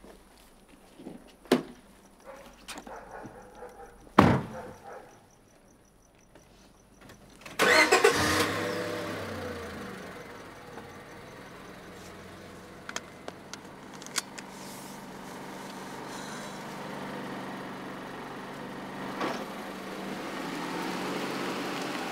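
A car door clicks open and shuts with a heavy thump, then about eight seconds in the car's engine starts, its revs falling away over a couple of seconds as it settles into a steady idle.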